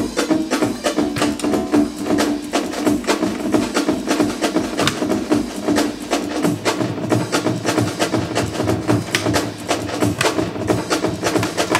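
A breakbeat drum loop played from a Make Noise Morphogene sampler, run through the QPAS filter and Mimeophone delay of a Eurorack modular synthesizer, with fast, dense drum hits whose sound shifts as the controls are turned. About six and a half seconds in, a low bass layer comes in.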